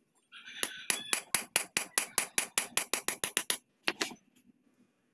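Hammer blows on a pin punch, a fast even run of about five strikes a second for nearly three seconds, then two more, knocking the drilled-out rivets out of a Yamaha Sniper 150 clutch housing to free its worn dampers. A short scrape comes just before the blows.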